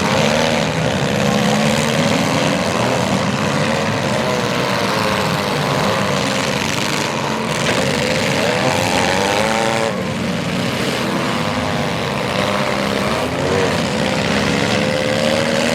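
Several front-wheel-drive derby car engines running and revving together, their pitches rising and falling unevenly.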